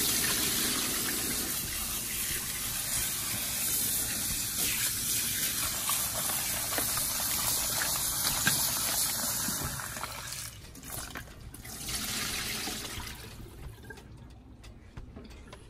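Kitchen tap running into the sink while chopped broccoli is rinsed under it. The flow drops off about ten seconds in, comes back briefly, then dies away near the end.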